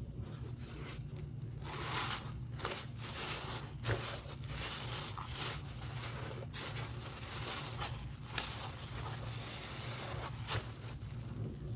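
Gloved hands swishing through cleanser suds in a sink, then squeezing a foam-soaked cleaning sponge: wet squelching and crackling foam, with a few sharper squishes. A steady low hum runs underneath.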